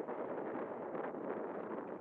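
Wind blowing across the camera microphone, a steady rushing noise.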